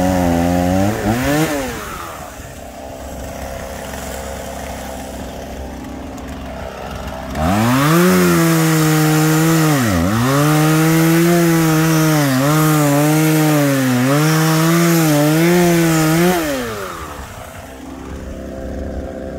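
Chainsaw cutting wood: the engine runs at full throttle with its pitch sagging and recovering as the chain bites, with a quieter stretch at lower revs early on. It then revs hard again through a series of cuts and drops back toward idle near the end.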